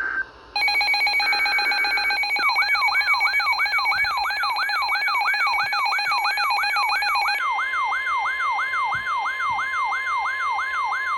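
Emergency Alert System weather-radio alert tones ushering in a tornado warning. Brief digital data screeches give way to a steady shrill attention tone that changes pitch about seven seconds in. From about two seconds in, a siren wail rising in pitch repeats about two and a half times a second over the tone.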